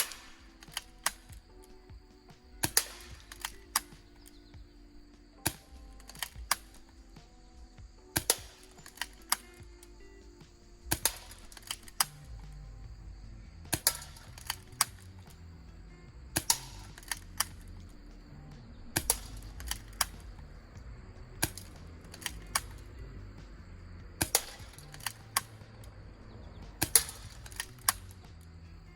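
Background music with a stepping bass line and held notes, cut through by clusters of sharp clicks that repeat very evenly about every three seconds.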